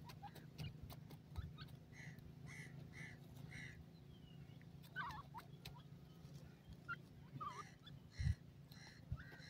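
Young grey francolins (teetar) giving faint, soft calls: a run of about four short notes a couple of seconds in, then a few quick chirps, over a steady low hum. A couple of dull thumps come near the end.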